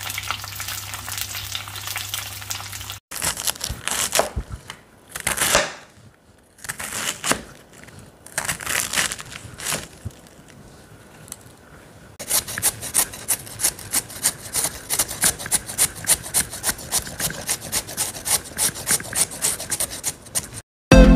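Spring rolls sizzling as they fry in a pan of oil for about three seconds. Then a knife slicing cabbage on a wooden chopping board in a few separate cuts. Then a carrot being rubbed on a hand grater in a steady run of strokes, about three a second, stopping near the end.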